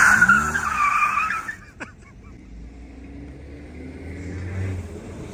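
An Acura sedan's tyres squeal as it turns sharply into a parking space, a wavering high squeal for about a second and a half. The engine is then heard running low and quiet as the car rolls to a stop.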